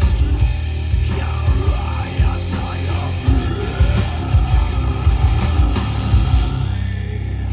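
Live heavy metal band playing loud, with distorted guitars, bass and pounding drums.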